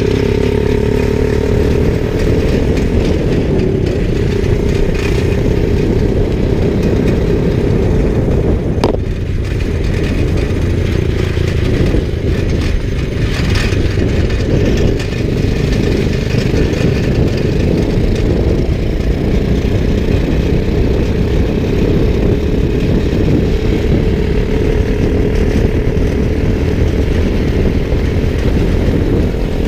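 Motorcycle engine running steadily under way, with a constant droning tone and heavy low rumble; a single sharp click about nine seconds in.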